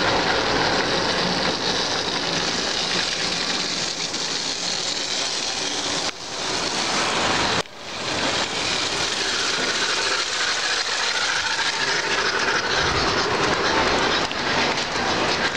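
Soviet-made early-1960s Moskbel O-gauge toy train running on its track, its motor whirring and its wheels rattling steadily over the rails, with a brief break about halfway through.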